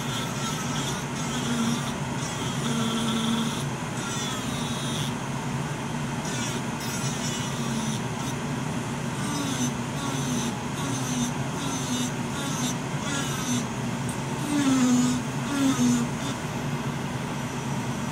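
Nova Flair II LA Premium nail dust collector's fan running with a steady hum while an electric nail drill files acrylic nails; the drill's whine repeatedly slides down in pitch as the bit bears on the nail, with a scratchy filing noise over it.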